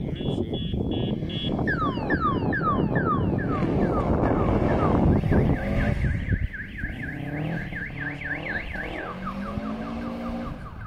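Rally car driving past at speed on a snow stage, its engine loudest about five seconds in and then dropping in pitch as it moves away. A fast, repeating high-pitched chirp runs alongside it through the second half.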